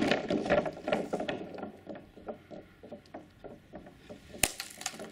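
Firework rocket climbing away after being fired from a rubber-band launch tower: a hissing, crackling rush that fades over about two to three seconds. A single sharp crack comes near the end.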